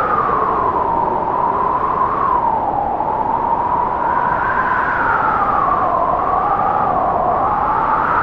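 Strong wind blowing: a steady rush with a whistling tone that slowly rises and falls in pitch.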